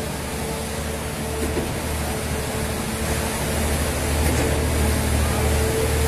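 Diesel engine of a concrete pump running steadily: a low drone with a thin whine above it, getting a little louder about halfway through.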